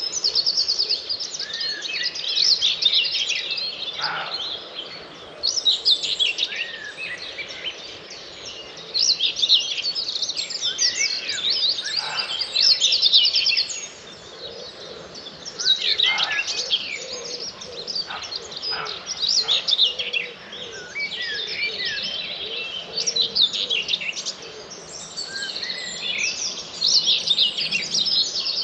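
Dawn chorus of many songbirds singing at once: overlapping trills, chirps and warbling phrases that swell and fade every few seconds.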